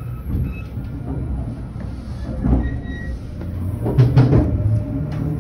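Passenger train running, heard from inside the coach: a steady low rumble with a few sharp knocks about four seconds in.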